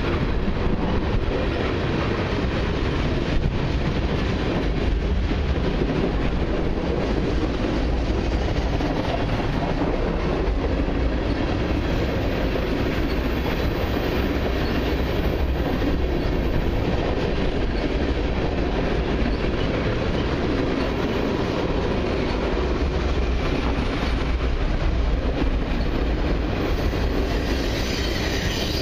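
Freight train of tank cars and covered hoppers rolling past: a steady rumble of steel wheels on rail with clickety-clack over the rail joints. A high wheel squeal comes in near the end.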